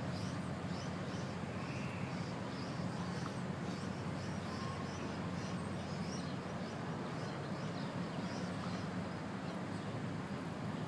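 Steady low rumble of waterfront background noise, with a small bird chirping about twice a second over it.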